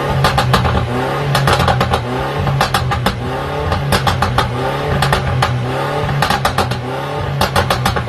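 Tuned Mercedes E350's engine revving, its pitch climbing again and again, about once a second, over a steady low drone. Clusters of sharp exhaust crackles and pops come in with the revs.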